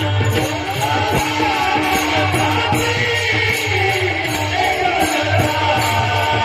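Warkari bhajan music: a singer's voice gliding through ornamented phrases over a steady jingling beat of small hand cymbals and a low drum.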